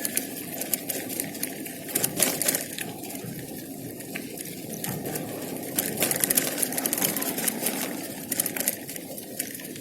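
Steady rushing noise with scattered crackles and clicks, thickest about two and six seconds in: wind and road noise on the microphone while riding a bike through the city.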